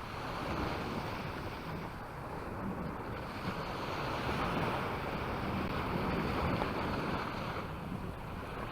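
Sea waves breaking and washing onto the beach in a steady wash of surf, with wind buffeting the microphone.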